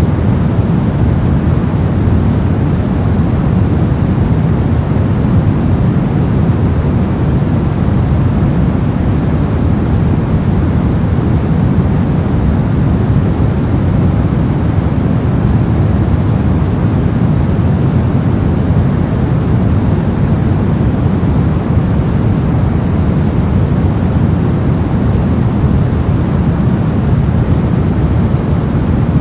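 Steady brown noise: an even, deep rumbling hiss, strongest in the bass and falling away towards the treble, without change.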